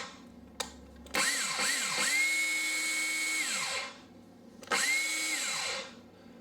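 Makita DHR264 36 V cordless rotary hammer drill, fitted with its standard chuck, running unloaded in trigger pulls. Two quick blips are followed by a whine of about a second and a half that spins down, then a shorter run of about a second that also winds down.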